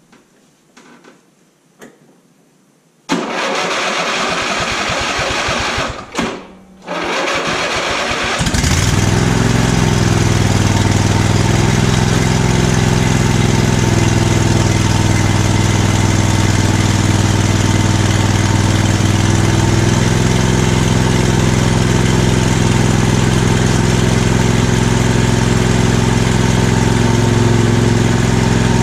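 Huskee (MTD) lawn tractor's 22 hp Briggs & Stratton V-twin being cranked by its starter off a jump starter, since the battery is dead. It cranks for about three seconds, stops briefly, cranks again, then catches about eight seconds in and settles into a steady run.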